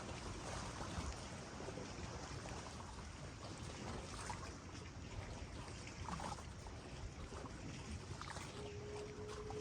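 Steady rushing and trickling of water around a steamboat. About a second before the end, the boat's steam whistle starts a single steady low note.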